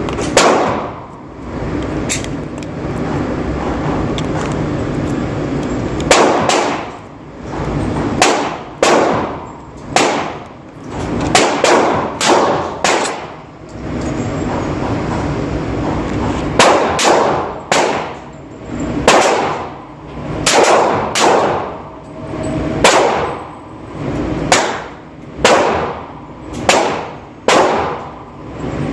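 Glock 20 10mm pistol shots fired one after another, singly and in quick pairs about a second apart, each with a short ringing echo. The shots come thickest after the first few seconds.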